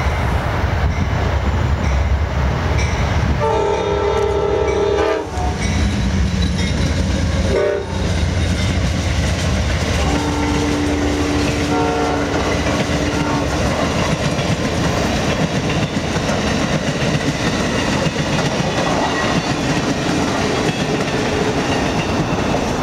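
Amtrak passenger train led by a GE P42 Genesis diesel locomotive passing close by. It blows a chord horn three times: a long blast about three seconds in, a short one near eight seconds, and a longer one from about ten seconds. Under the horn runs the steady heavy rumble of the engine and of the passenger cars' wheels clattering over the rails.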